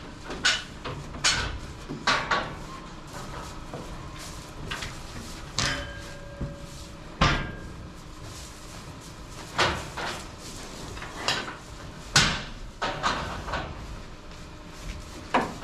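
A dozen or so sharp, irregular knocks and bangs, a second or two apart, over a steady background hum.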